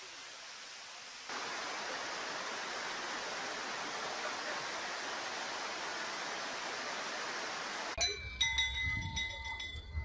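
Waterfall: the steady rush of water pouring down rock into a pool, somewhat quieter for about the first second, then louder and even. Background music with struck, bell-like notes comes in near the end.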